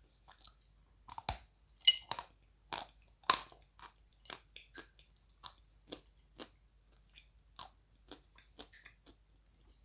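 Dry lumps of edible clay and chalk bitten and chewed close to the microphone: a string of sharp, irregular crunches, the loudest about two and three and a half seconds in, growing sparser and softer near the end.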